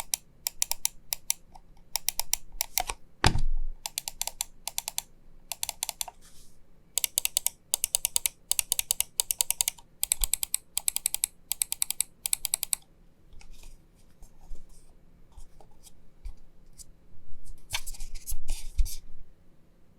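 Zaopin Z2 gaming mouse buttons clicking in quick runs of sharp clicks, with one heavier knock about three seconds in. Clicks become sparser and fainter in the later half.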